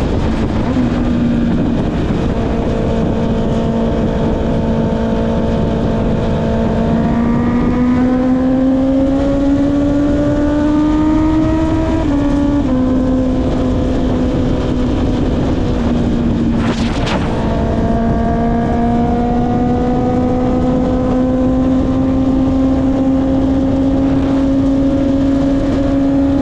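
Honda CB650R's inline-four engine through an Akrapovic exhaust, cruising at steady revs, then pulling up in revs. About twelve seconds in it drops abruptly in pitch at an upshift, then holds and climbs slowly again. Wind rushes over the microphone throughout, and there is a brief sharp noise about seventeen seconds in.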